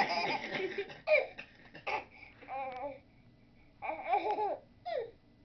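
A nine-month-old baby babbling and laughing in short, high-pitched vocal bursts with pauses between them. It opens with the tail of a loud burst of laughter that stops about a second in.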